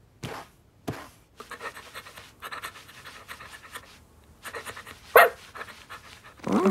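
Cartoon kitten's voiced sound effects: quick, rhythmic panting breaths for several seconds, with two short falling vocal sounds at the start and one sharp, louder sound about five seconds in.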